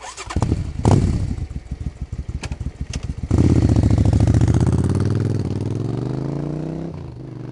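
An engine being started: about three seconds of rapid, uneven sputtering pulses, then it catches and runs with a steady tone whose pitch rises slowly, dropping back slightly near the end.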